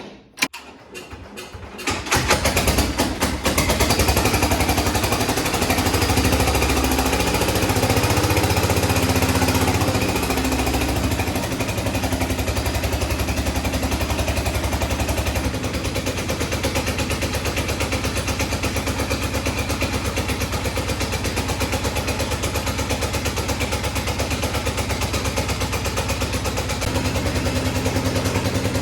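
Cub Cadet 129 garden tractor engine starting about two seconds in after a few brief clicks, then running steadily. It runs a little harder for a few seconds before settling.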